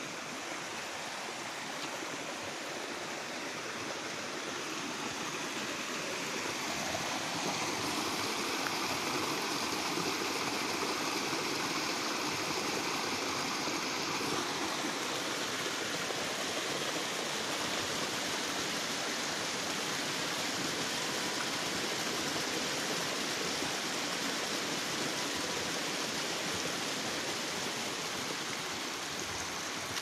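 Water of a small waterfall cascading over rocks into a stream, a steady rush that grows a little louder about seven seconds in.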